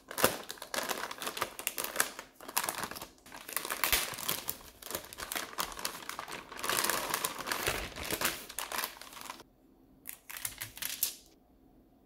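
Metallic anti-static bag around a graphics card crinkling and rustling as it is handled, a dense run of small crackles. It stops about three quarters of the way in, with a couple of brief crinkles before it falls quiet.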